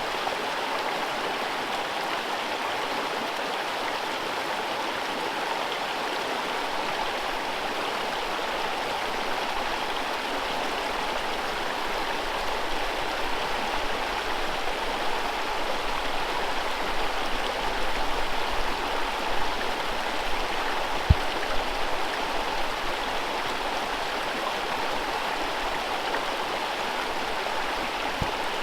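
Whitewater rapids of a forest river rushing steadily, an even hiss of churning water. One brief low thump comes about two-thirds of the way through.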